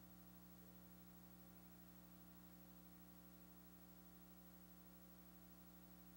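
Near silence: a faint, steady hum with light hiss.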